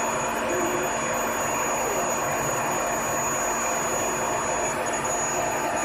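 Induction heating furnace equipment running steadily: a constant machine noise with a low hum and a thin, high-pitched whine on top.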